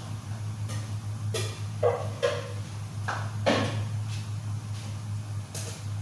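Kitchen clatter: a handful of sharp knocks and short ringing clinks, like dishes or utensils being handled, bunched between about one and four seconds in, over a steady low hum.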